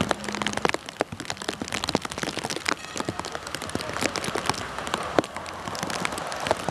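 Rain falling, with many sharp, irregular raindrop ticks hitting a hard surface close to the microphone over a steady hiss of rain.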